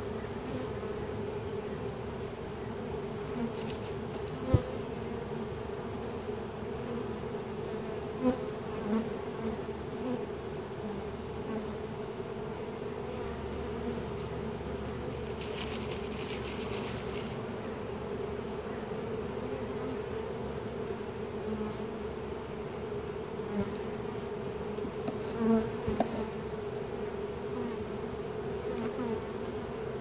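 Honeybee swarm humming steadily at close range as the bees march into a wooden nuc box. A few sharp taps break in, and there is a brief rustle about halfway through.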